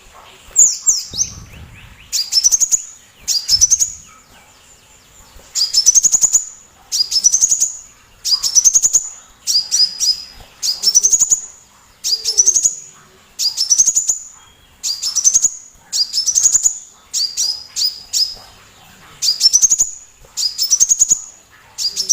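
Sunbird singing loudly: a high, rapid phrase that sweeps upward, repeated over and over about once every second or so.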